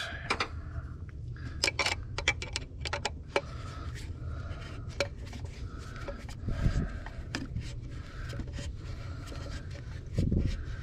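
Screwdriver tightening the hold-down screws of a distributor cap: small irregular clicks with light scraping and rubbing as the tool turns and shifts.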